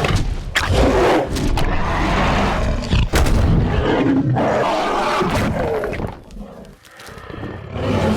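Sound-effect creature roars for a film dinosaur, mixed with heavy thuds and crashes. The sound falls away almost to quiet about six to seven seconds in, then swells again.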